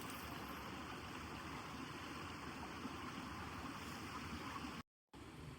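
Steady rushing of running water from a stream. It breaks off into silence for a moment near the end.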